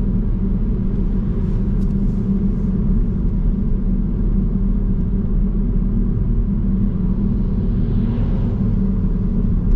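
Steady low road and engine rumble inside a Mazda Axela Sport's cabin while driving, with an oncoming truck swelling past about eight seconds in.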